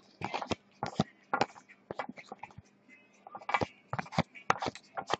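Football trading cards being slid one by one off the front of a stack, each giving a short, sharp flick of card against card: about a dozen in quick succession, with a brief pause around the middle.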